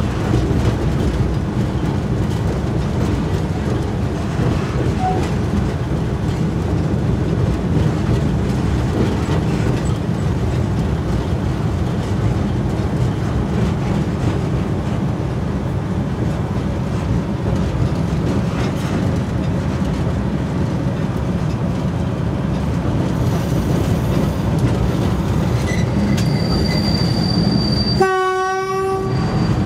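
Steady rumble of a 401Da diesel locomotive's engine and wheels on the track, heard from inside the cab. Near the end comes one short, shrill blast of the locomotive's horn, the warning sounded on approaching a level crossing.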